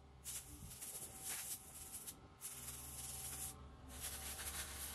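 Faint hiss of a compressed-air blow gun blowing dust out of a car's cylindrical paper air filter element, cleaning it so it can be reused. The air cuts off briefly a few times as the trigger is released.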